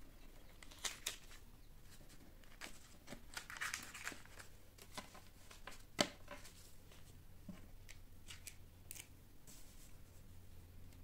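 Euro banknotes handled and riffled through by hand on a tabletop: crisp paper rustling and flicking in short spells, with one sharper click about six seconds in.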